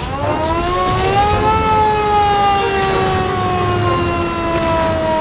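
A hand-cranked World War II air-raid siren wailing. Its pitch rises for the first second and a half as it is cranked up, then slides slowly down as the rotor spins down.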